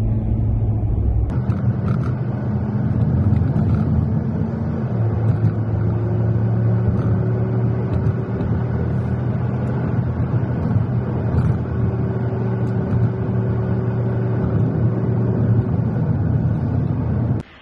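Car cabin noise while driving: a steady engine hum and tyre rumble. The tone shifts abruptly about a second in and again a few seconds later.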